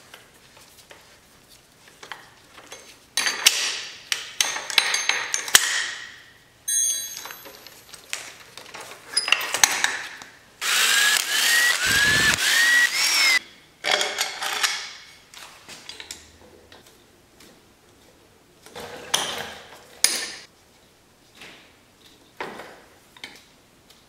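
Hand tools on an engine's clutch cover bolts: bursts of ratchet clicking and metal tool clatter. About halfway through, a power tool runs for about three seconds with a short rising whine that repeats, spinning out a bolt.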